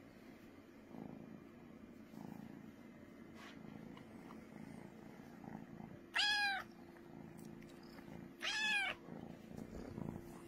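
A kitten purring loudly and steadily, with two short meows about six and eight and a half seconds in, each rising and then falling in pitch.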